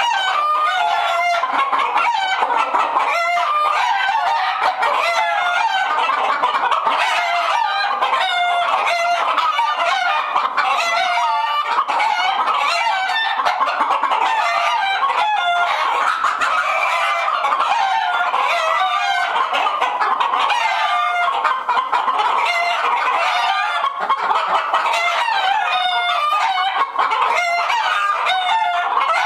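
A flock of alarmed hens clucking and squawking together in a henhouse, a dense, unbroken chorus of many overlapping calls.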